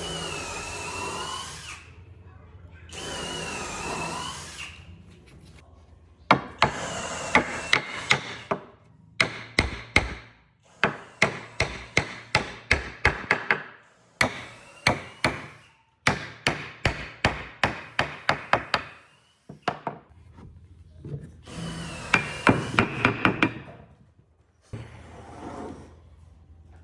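A small power tool whirs in two short bursts with a steady high whine. Then a hammer strikes wood in quick runs of sharp knocks, about three blows a second, with the tool whirring once more among the blows near the end.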